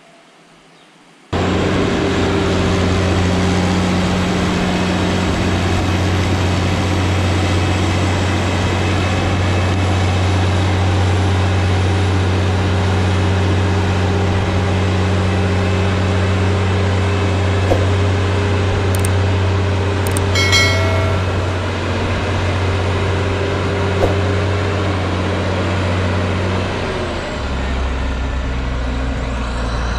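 Tractor engine running steadily with a deep hum. It cuts in suddenly about a second in, and its note drops lower near the end.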